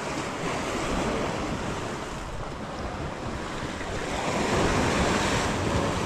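Sea waves breaking and washing against a rocky shore, swelling louder about four seconds in.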